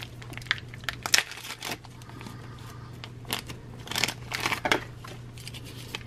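Clear plastic bag crinkling and rustling in short scattered bursts as hands work it open, with a cluster of crinkles about four seconds in. A faint steady hum runs underneath.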